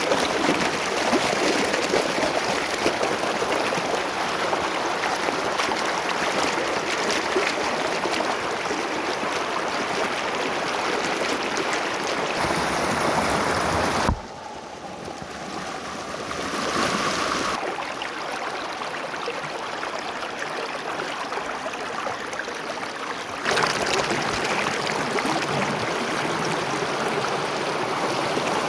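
Cold spring water running in a stream: a steady rush that suddenly turns quieter about halfway through and suddenly comes back about nine seconds later.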